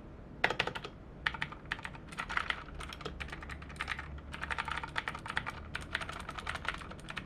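Rapid typing on a mechanical keyboard with Otemu Blue clicky switches, in fast bursts of sharp clicks with short pauses between them. Blue switches are characteristically a bit noisy.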